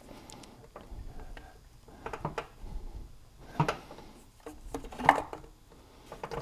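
Light clicks and rustles of a fuel line and fuel filter being worked into a Husqvarna 550XP chainsaw's plastic fuel tank, the loudest knocks about three and a half and five seconds in.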